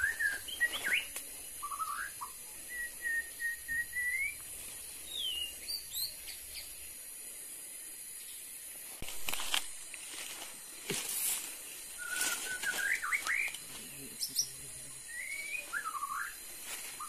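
Birds calling: short scattered whistled chirps and slurred notes, with a few soft clicks in between.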